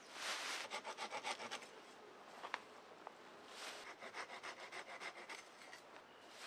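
Small hand saw cutting through green pine branches in quick back-and-forth strokes, in two bouts: a short one about half a second in and a longer one from about the middle. A rustle of pine needles just at the start.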